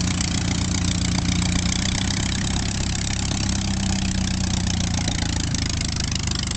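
A de Havilland Tiger Moth biplane's piston engine running on the ground with its propeller turning. It makes a steady, even drone over a hiss.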